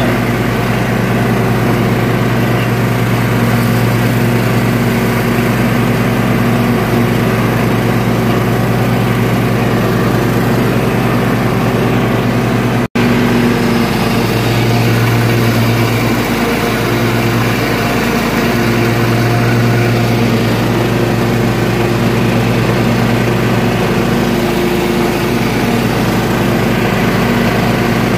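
Toro riding lawn tractor's engine running steadily while mowing tall grass, with the pitch wavering slightly as it works. The sound cuts out for an instant about halfway through.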